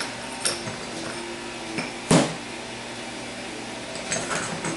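Steel transmission parts clinking and knocking as they are handled on a diamond-plate steel bench: a few light clicks, one louder clunk about two seconds in, and a cluster of clicks near the end, over a steady background hum.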